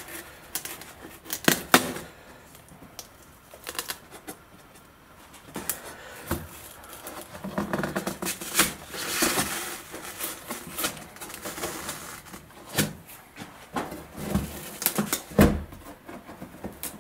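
Scattered clicks, taps and scrapes of hands working at the edge of a screwed-down plywood crate lid, with a heavier thump near the end.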